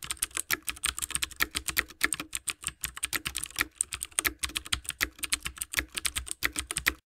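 Computer keyboard typing sound effect: a fast, continuous run of key clicks, roughly eight to ten a second, that stops suddenly near the end.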